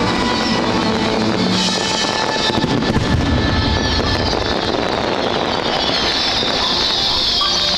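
Music playing loudly together with the bangs and crackle of a large fireworks display.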